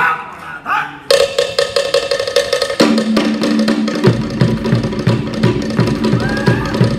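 Cook Islands traditional drumming starting up: fast, even strokes on wooden slit drums begin about a second in, a deeper drum joins near the middle, and a bass drum beats along from about four seconds.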